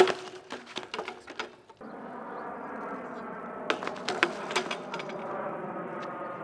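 A BMX bike and its rider crashing onto asphalt: a loud clattering impact at the start, then more knocks and rattles for a second or so, and a second round of clattering about four seconds in. From about two seconds in, a steady droning hum runs underneath.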